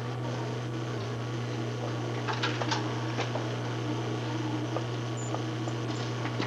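A steady low electrical hum with hiss, with a few faint clicks about two to three seconds in.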